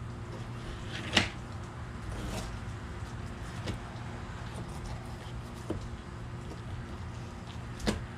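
Fillet knife clicking and knocking against a plastic cutting board while a flounder is filleted: a few sharp taps, the loudest about a second in. A steady low mechanical hum runs underneath.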